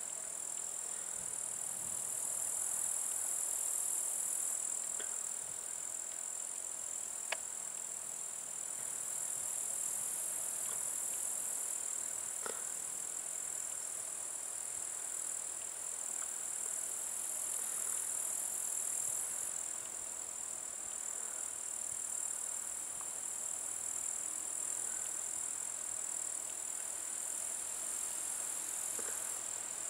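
Insects trilling steadily in a high-pitched chorus that swells and fades every few seconds, with a few faint clicks.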